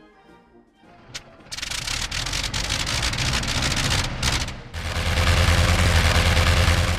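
Fokker D.VIII replica's engine starting after a hand-swung propeller start: a click, then it catches about a second and a half in and runs loud and crackling. It falters briefly around four seconds in, then settles into a steady fast beat.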